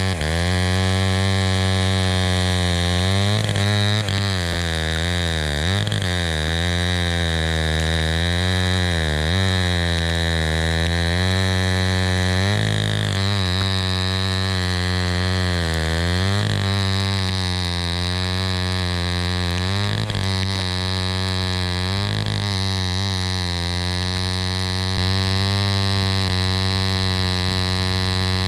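Homelite C-91 chainsaw's 5.2-cubic-inch single-cylinder two-stroke engine running at a steady, low-pitched drone, its speed repeatedly sagging and picking back up every few seconds.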